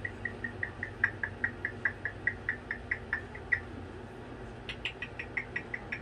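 A cockatoo making rapid, short, high-pitched ticks, about five a second. One long run stops about three and a half seconds in, and a shorter, sharper run comes near the end.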